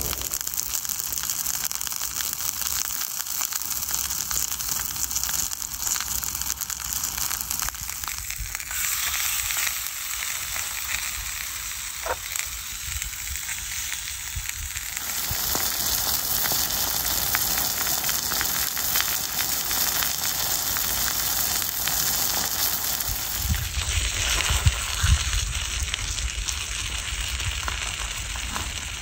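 Breakfast food frying in a pan: a steady sizzle, with a few low bumps near the end.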